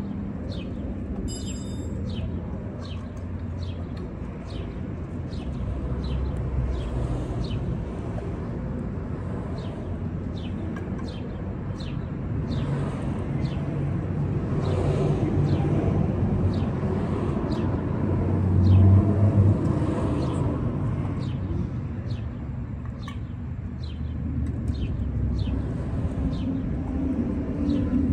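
Outdoor background: a steady low traffic rumble that swells as a vehicle passes around the middle, under a bird chirping over and over, about once a second.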